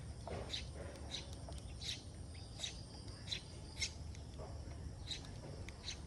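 Sparrows chirping: short, sharp chirps repeating about every half second, with a couple of lower calls, over a steady low rumble.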